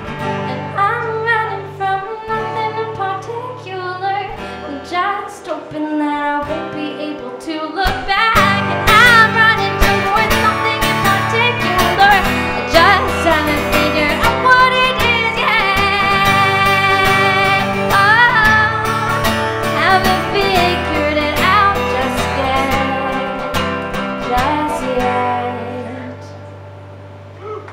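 A woman sings over her own strummed acoustic guitar. The singing grows louder about a third of the way in. Near the end the voice stops and a guitar chord rings on quietly.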